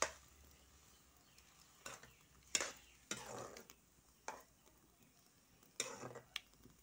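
A spoon or spatula scraping and knocking irregularly against a wok (kadai), breaking up and stirring Maggi noodles cooking in water.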